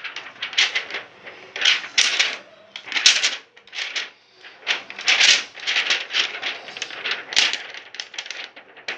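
Plastic dolls and toy pieces clattering as they are handled, in short bursts of rapid clicks with brief pauses between.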